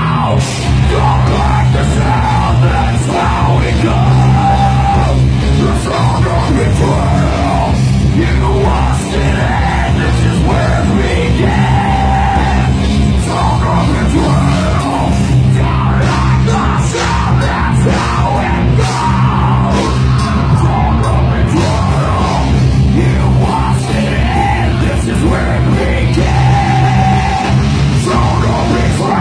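Metal band playing live at full volume, with dense, heavy instrumentation and harsh yelled vocals over it.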